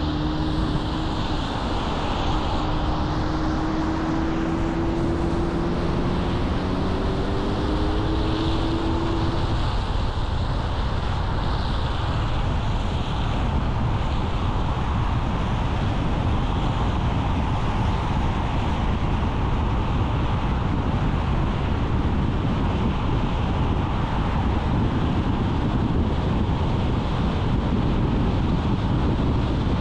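A car driving on the road, with steady road and wind noise. For the first ten seconds or so an engine note rises gradually in pitch, then fades into the road noise.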